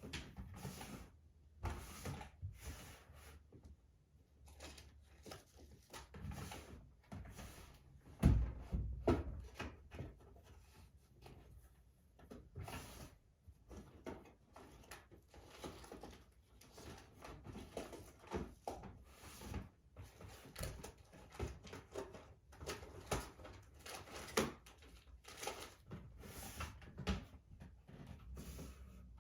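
Someone rummaging through a cluttered drawer, with irregular clicks and knocks of small objects being shifted and clattering against each other. A louder knock comes about 8 seconds in.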